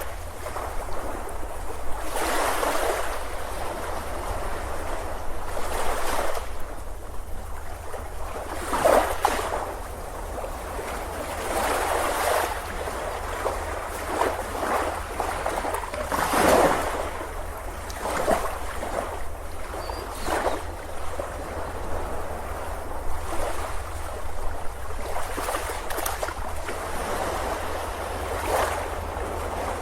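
Ocean surf on a beach, waves breaking and washing in, surging every two to four seconds over a steady low rumble.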